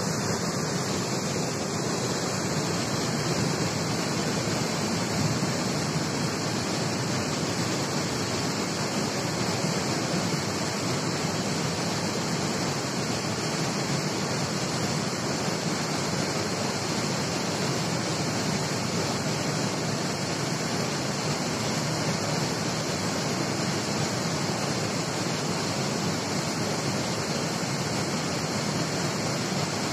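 River water pouring steadily over a small weir into a pool, a constant rushing noise that does not change.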